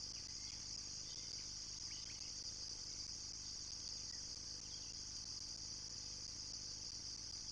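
Steady chorus of insects, a continuous high-pitched trill that does not change, with a few faint short bird chirps over it.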